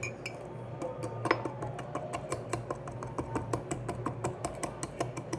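A utensil tapping and clinking rapidly against a cup, about five strokes a second, as biscuits are mashed into a thick mug-cake batter.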